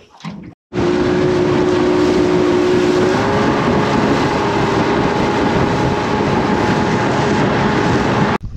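Boat's outboard motor running under way, with steady rushing wind and water noise; its pitch rises a little about three seconds in. It starts suddenly under a second in and cuts off just before the end.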